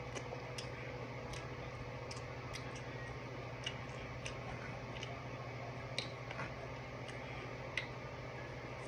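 Close-up eating sounds from chewing sauce-covered chicken: scattered soft clicks and lip smacks at uneven intervals, over a steady low room hum.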